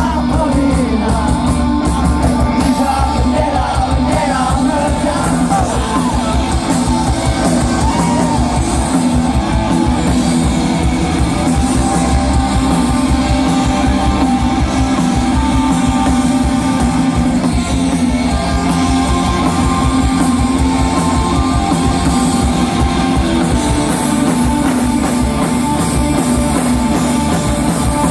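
Live rock band with a lead singer and guitars playing loudly through a concert PA system, heard from within the audience.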